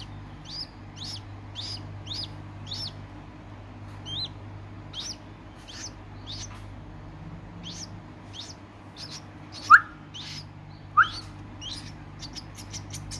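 White-breasted waterhen chicks peeping: a steady run of short, high peeps about two a second, with two louder, lower calls near the end and a quicker flurry of peeps just after them.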